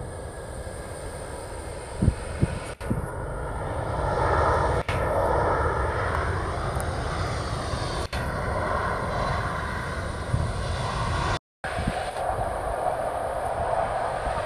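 Turbofan jet engines of DHL cargo jets moving along the taxiway: a steady roar and low rumble. The engine whine swells and glides in pitch as a jet passes, with two brief thumps about two seconds in and a short dropout near the end.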